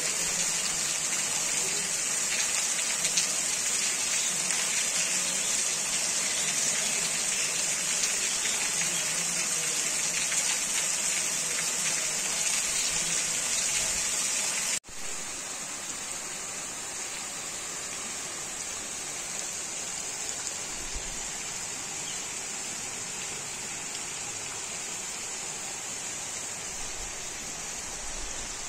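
Steady heavy rain, an even rush of falling water. About halfway through it drops out for an instant and comes back a little quieter and less bright.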